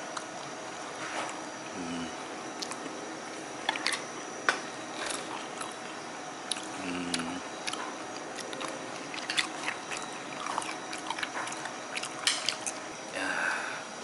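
A person chewing raw sea bass sashimi, with scattered small clicks and taps throughout.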